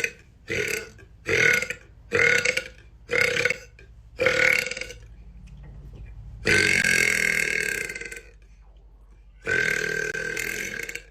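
A woman belching: a run of five short burps in quick succession, then two long drawn-out belches.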